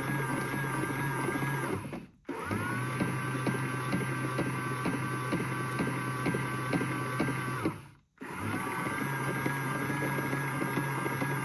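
Battery-driven drum motor of a Theo Klein toy AEG Electrolux Lavamat washing machine running with a steady whine, low hum and fast plastic ticking. It winds down and stops twice, about two seconds in and again near eight seconds, then spins back up each time.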